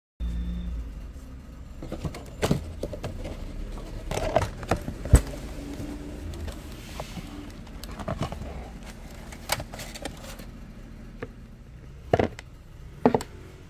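Handling of a paperboard pastry box and the plastic containers inside it: rustling, with scattered taps and sharp clicks, the sharpest about five seconds in and two more near the end, over a low steady rumble.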